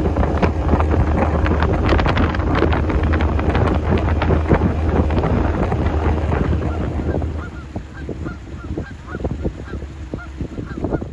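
Waterfowl honking in a dense, overlapping clamor that thins after about seven seconds to a steady string of single honks, about three a second.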